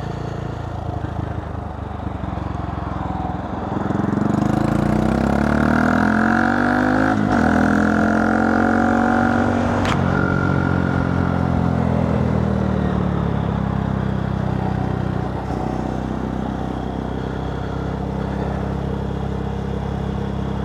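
Honda Monkey 125's single-cylinder engine through a Scorpion titanium exhaust with the baffle fitted, heard while riding. About four seconds in it gets louder and climbs in pitch under acceleration, then after about ten seconds it drops back and settles into a steady cruise.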